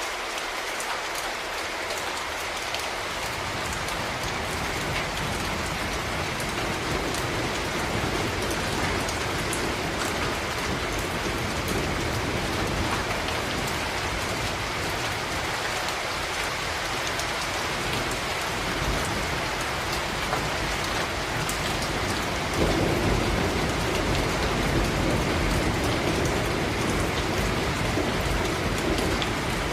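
Steady rain falling on hard surfaces, with a low rumble of thunder that builds a few seconds in and swells about 22 seconds in.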